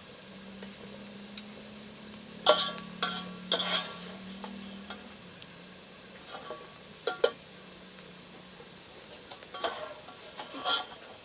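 Potatoes frying in oil with a steady sizzle, while a metal utensil stirs them and strikes the pan, giving about seven sharp, ringing clanks in three clusters.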